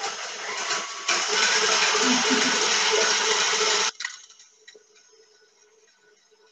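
Electric stand mixer running with its whisk in a metal bowl, whipping egg whites. It gets louder about a second in, then drops away sharply about four seconds in to a faint steady hum.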